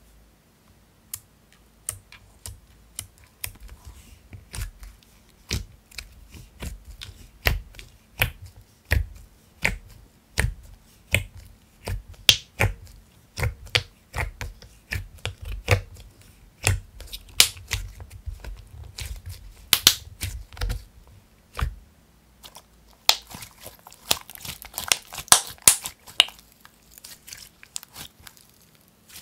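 Soft clay-mixed slime being poked with fingers in a plastic tub and squeezed in the hands: a run of sticky wet clicks and pops, several a second, turning into a denser crackling stretch toward the end.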